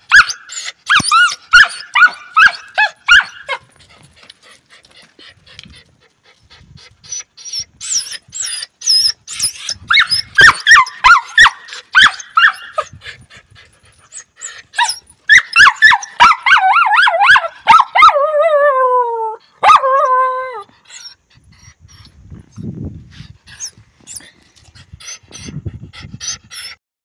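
Chained dog whining and yipping in high, wavering cries, coming in several bouts. The longest bout, about two-thirds of the way in, ends in a drawn-out cry that slides down in pitch.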